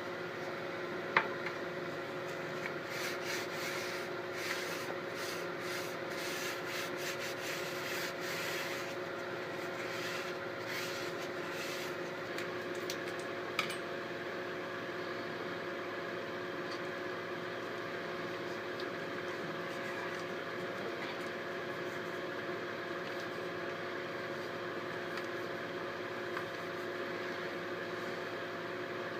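Short rubbing and scraping strokes repeated for about ten seconds, with a sharp click near the start and another as they stop. Under them a steady mechanical hum with two clear tones runs throughout.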